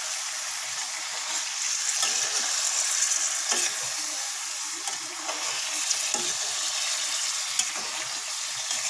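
Paneer cubes, capsicum and onion sizzling steadily in hot oil in a kadai, with a metal spatula giving a few light scrapes and taps against the pan as the pieces are gently turned.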